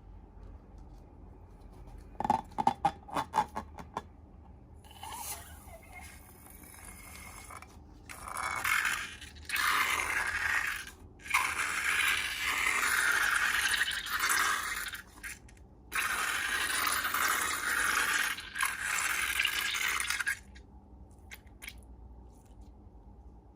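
Slime-making handling sounds: a quick run of sharp clicks, then several long stretches of steady scraping noise, each a few seconds long with short breaks between.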